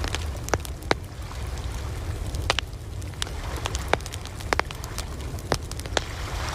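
Campfire crackling, with sharp, irregular pops several times a second, over a steady low rumble and the wash of ocean waves.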